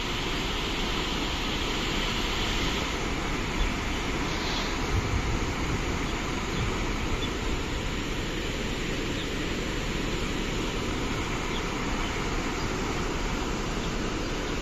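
A fast mountain river running over stones in white-water rapids: a steady rushing roar of water, with a few brief low bumps about four and five seconds in.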